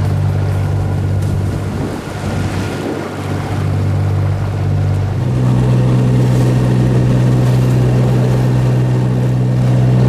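Fishing boat's engine running steadily over rushing water. About five seconds in it rises in pitch and grows louder, then holds the higher speed.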